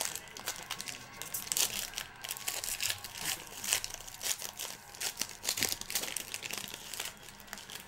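A trading-card pack wrapper being torn open and crinkled by hand: an irregular run of crackling, rustling and sharp crinkles that eases off near the end.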